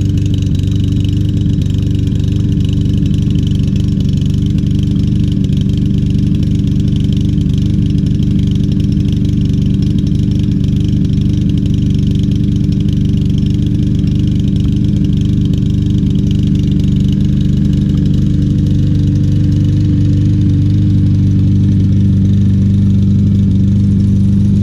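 A 150cc single-cylinder Briggs & Stratton engine on a walk-behind lawn mower runs steadily at a constant speed. It has an engine miss after a carburetor cleaning, which the owner hopes will smooth out.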